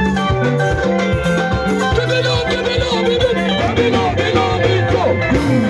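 Live band dance music played loud through PA speakers: bass, guitars and drums, with a voice singing over them.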